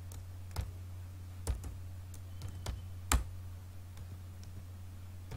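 Scattered keystrokes on a computer keyboard, a handful of separate key presses a second or so apart, over a steady low hum.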